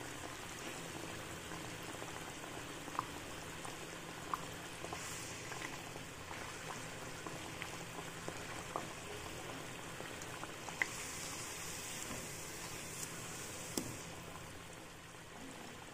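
Poha kachori deep-frying in hot oil: a steady bubbling sizzle dotted with small pops. The pastry is partway through frying, just starting to turn golden.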